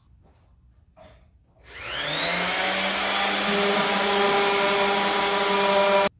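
A small handheld corded power tool, held on the end of a wooden board, starts up about a second and a half in. Its motor whine rises in pitch as it spins up, then runs steady until it cuts off suddenly near the end.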